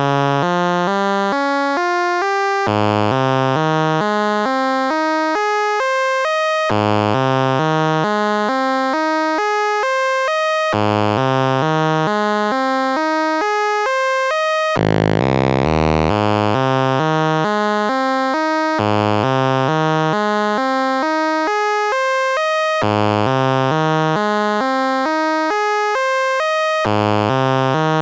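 Moog Spectravox analog synthesizer, one oscillator through its resonant filter, playing a sequence of stepped notes that climbs and then restarts about every four seconds. A steady resonant ring sits over the notes, and the sound turns brighter and buzzier for a moment about halfway through.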